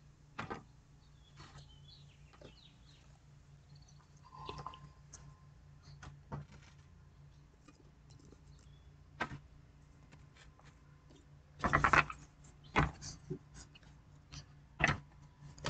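Tarot cards being handled and shuffled: scattered soft clicks and taps, with a brief louder shuffle about twelve seconds in.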